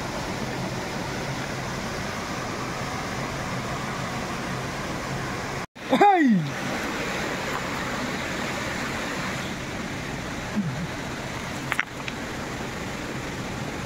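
Steady rushing of flowing stream water. About six seconds in, after a brief break in the sound, a person gives a short loud cry that falls in pitch.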